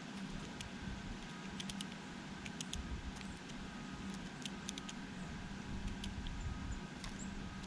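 Irregular light clicks and taps, often in quick little clusters, of a blue jay pecking and picking at its food, over a steady low hum.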